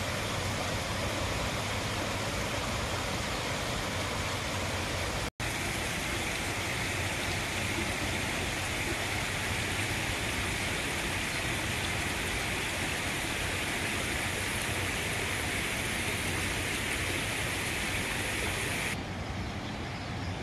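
Steady outdoor rushing noise with no distinct events. It breaks off for an instant about five seconds in.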